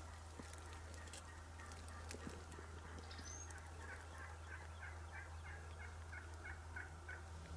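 Turkey calling faintly: a run of about a dozen short, evenly spaced notes, about three a second, starting near the middle and lasting roughly three seconds. A few faint clicks come before it.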